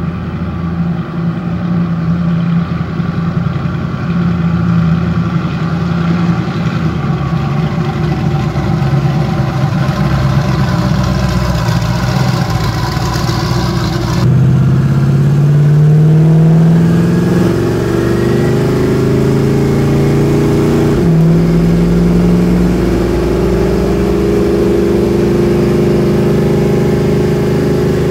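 Twin-turbocharged 427 small-block Chevy V8 in a 1969 Camaro, driving on the street. At first it runs at a fairly steady pitch. After an abrupt change about halfway through it accelerates, its pitch climbing, dropping suddenly at a gear change about three quarters through, then climbing again.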